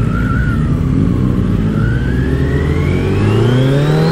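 Kawasaki Z900's inline-four engine pulling hard under acceleration. Its pitch dips slightly in the first second, then climbs steadily for about three seconds.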